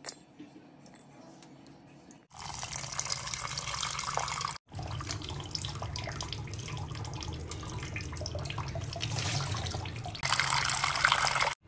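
Water splashing and sloshing in a steel bowl as a hand swirls and rubs tamarind in it to wash it, louder near the end. The first couple of seconds are quieter, with a few light clinks.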